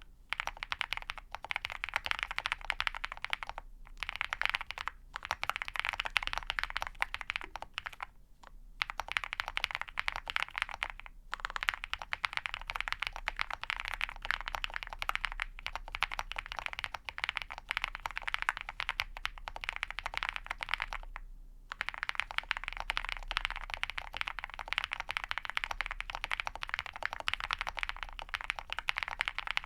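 Fast continuous typing on a custom mechanical keyboard with lubed and filmed Ca Phe Sua Da linear switches on a POM plate and PBT keycaps: a dense run of key clacks with a few short pauses.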